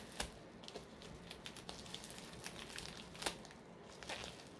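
Plastic mailer pouch crinkling faintly under the hands as its glued flap is picked at and peeled open, with scattered small crackles and one sharper click about three seconds in.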